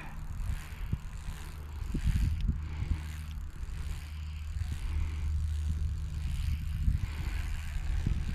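Wind buffeting the microphone: a steady low rumble that swells and dips.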